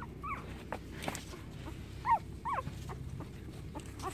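Young puppies whimpering: a few short, high-pitched cries that fall in pitch, with a brief scrape about a second in.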